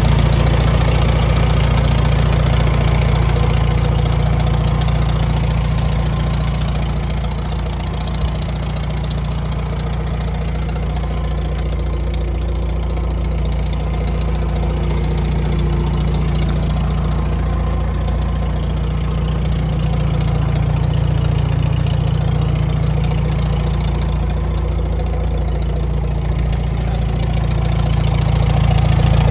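1957 Farmall 350 tractor's four-cylinder gas engine idling steadily, a little quieter partway through and louder again near the end.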